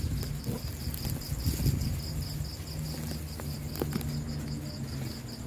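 A cricket chirping steadily in even high pulses, about four a second, over low rustling and handling noise.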